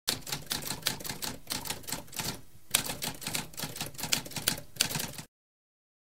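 Typewriter keys being struck in a rapid run of sharp clicks, several a second, with a brief pause about halfway through. The typing stops abruptly about five seconds in.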